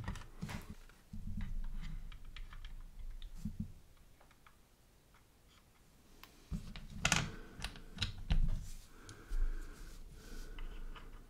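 Irregular light clicks and taps of plastic model parts and small tools being handled on a workbench, with a few duller low knocks about two-thirds of the way in.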